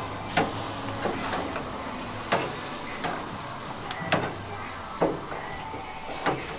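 Jerk chicken sizzling on a charcoal grill grate, with about half a dozen sharp, irregular clicks of metal tongs on the grate and the meat as pieces are turned.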